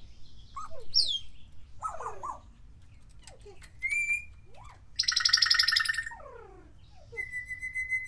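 Timneh African grey parrot whistling: a run of short falling whistles, a rising whistle about four seconds in, a loud buzzy trill about five seconds in, and a held high whistle near the end.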